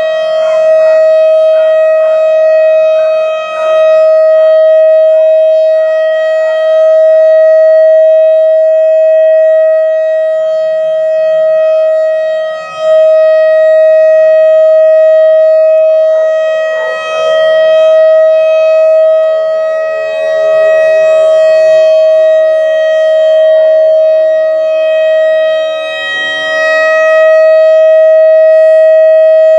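Whelen WS-3016 outdoor warning siren sounding a steady tone during its test, loud, with its loudness dipping briefly every several seconds. A fainter tone slides slowly lower beneath it in the second half.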